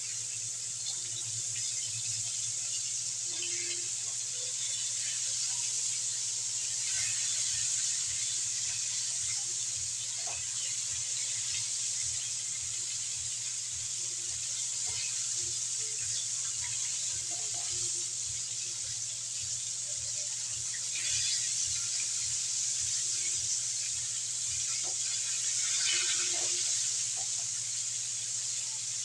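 Chicken pieces deep-frying in hot oil in a wok: a steady sizzle that swells now and then, with occasional light knocks of metal tongs turning the pieces.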